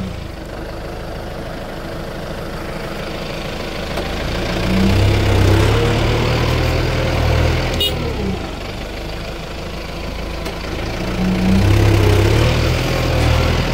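Kubota tractor's diesel engine running under load while ploughing. Its note swells louder twice, about a third of the way in and again near the end, and a sharp click sounds about halfway.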